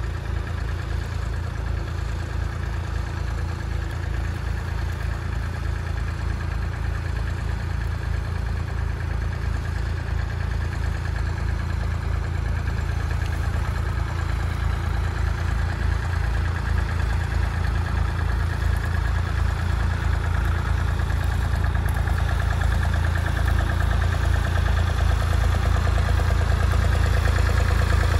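David Brown 885 tractor's three-cylinder engine running steadily under load as it pulls a plough, getting steadily louder as it approaches.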